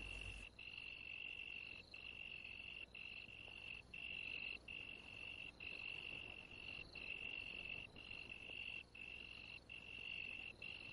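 Faint cricket trilling: a steady high-pitched buzz broken by short gaps a little more than once a second.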